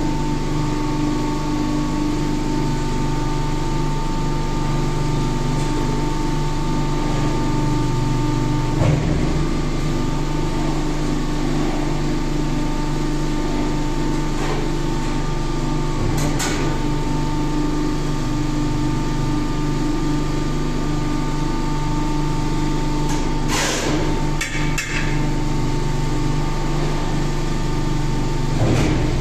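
Hydraulic power unit of an injection die-casting machine running with a steady hum and a constant whine, with a few sharp metallic clanks about 9 s in, 16 s in, a cluster around 23 to 25 s and one near the end as the machine cycles.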